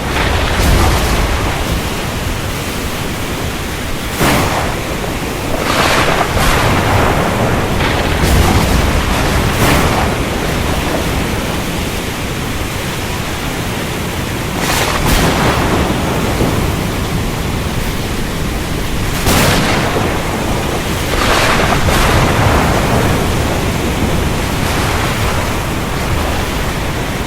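Steady heavy rain with thunder that rumbles and swells again and again, with louder surges about 4, 6, 8 to 10, 15, 19 and 21 seconds in.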